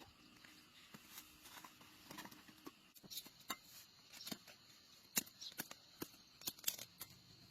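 Faint, irregular crackling and clicking as maize cobs are handled, husked and eaten, with sharper clicks coming more often in the second half.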